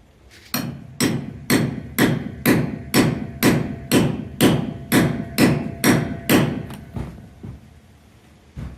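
Hammer driving a steel gate hinge bolt into a pilot hole in a wooden post to start its threads: about thirteen steady blows, roughly two a second, then two lighter taps near the end.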